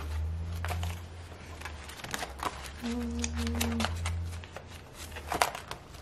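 Clear plastic sleeves and sticker sheets of a ring-bound sticker album being handled and turned, giving scattered soft crinkles and clicks. A brief hummed sound comes about three seconds in, over a steady low hum.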